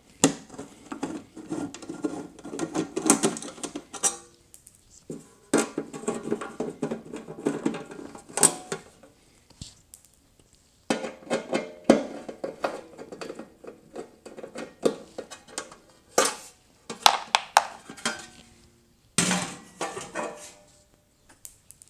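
Metallic clicking and clattering in irregular stretches as the bolts of a refrigerator's sheet-metal rear access panel are worked loose with a nut driver and the panel is handled.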